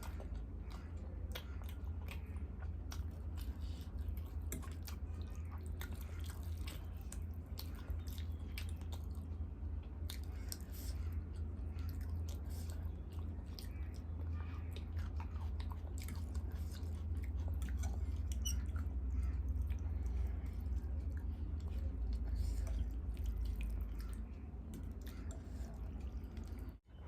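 Close-miked chewing and eating: wet smacks, small crunches and mouth clicks come thick and irregular, over a steady low rumble.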